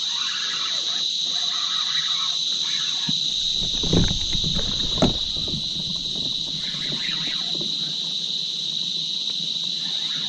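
A steady, high-pitched drone of insects, with two dull thumps about four and five seconds in.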